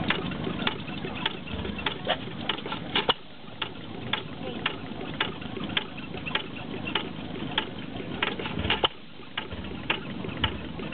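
New Holland hit-and-miss stationary engine running. It fires in a run of loud beats for about three seconds, then coasts on its flywheels with a steady clicking about twice a second, and fires again about eight and a half seconds in. This is the hit-and-miss governor skipping firing strokes until the engine slows.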